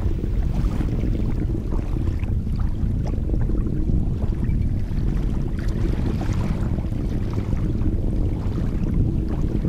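Distant rumble of a Delta IV rocket's RS-68 main engine and strap-on solid motors during ascent, a steady deep roar with irregular crackles.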